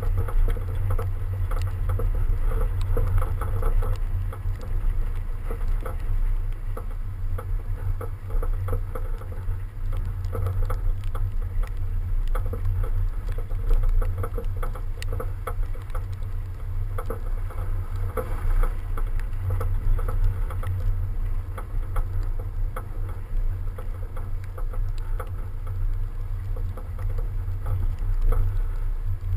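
A BMW 335d driving over packed snow, heard from a camera on its outside: a heavy low rumble of wind and tyre noise with a steady patter of snow and ice ticking against the body.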